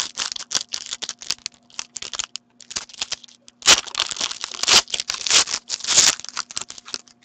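Foil wrapper of a hockey card pack being torn open and crinkled by hand: rapid, irregular crackling and rustling, loudest in bursts about four, five and six seconds in.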